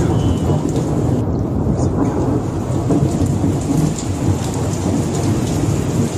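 Loud, steady rain noise with a continuous low rumble, like a thunderstorm picked up by a phone microphone.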